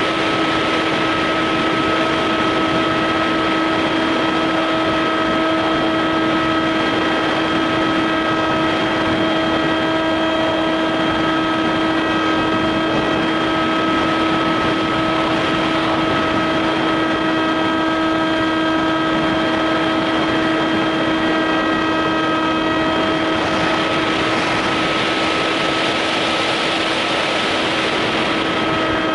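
Motor and propeller of a foam RC plane droning at one steady pitch, picked up by a camera mounted on the plane's nose, over a rush of wind on the microphone that swells for a few seconds near the end.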